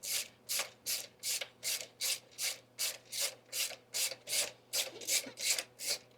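Ratchet wrench clicking in quick, even strokes, about three or four a second, backing out the upper bolt of a motorcycle's rear brake caliper once it has broken loose.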